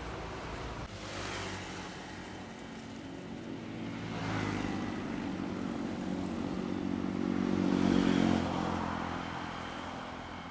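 Roadside traffic of motorcycles, trucks and buses passing close by. One engine's hum builds to its loudest about eight seconds in as the vehicle goes past, then fades.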